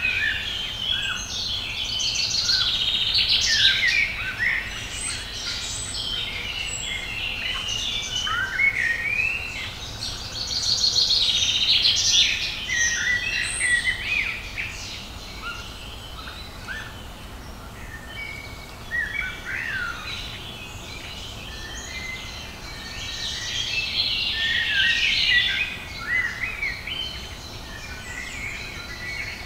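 Several songbirds singing at once in woodland: many quick rising and falling phrases and trills overlapping. The song swells about three seconds in, around eleven seconds, and again around twenty-five seconds.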